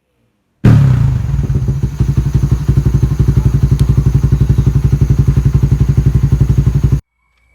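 Suzuki Raider 150 Fi single-cylinder four-stroke engine running through a hollowed-out kalkal exhaust pipe. It comes in suddenly at raised revs, settles within about a second to a loud idle with an even, rapid pulsing beat, and cuts off abruptly near the end.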